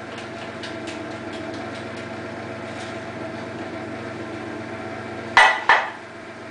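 Food processor motor running steadily, blending a vegan burger mixture. Two sharp clatters come about five and a half seconds in.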